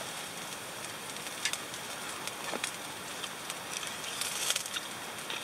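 Food sizzling and charcoal crackling on a shichirin charcoal grill: a steady hiss with a few sharp ticks, and a brief brighter rasp about four seconds in as metal tongs turn a green pepper on the grate.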